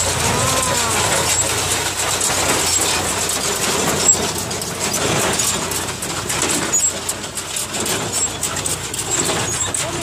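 Jones Balers MK10 small square baler running behind a Kubota L5018 tractor, clattering with frequent knocks as it picks up and packs straw into bales, the tractor's diesel engine running underneath.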